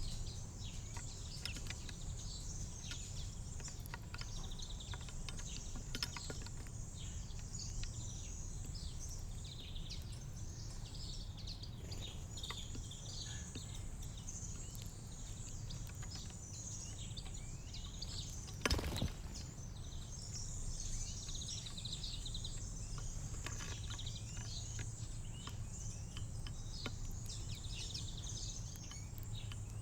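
Small songbirds chirping and twittering continuously over a steady low background hum, with a single sharp knock a little past halfway.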